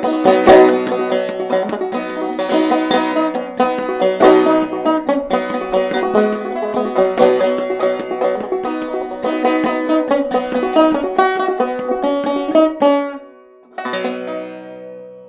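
Clawhammer banjo playing a brisk instrumental run of plucked notes. The playing stops about 13 seconds in, then a single final chord is struck and left to ring out and fade.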